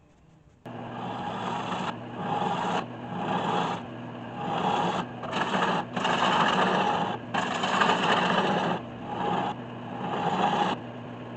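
A 1981 Delta 12-inch wood lathe running with a steady motor hum while a gouge cuts across the face of a spinning spalted maple blank. The rasping cutting noise starts abruptly about a second in and comes and goes in short passes, about one a second, over the hum.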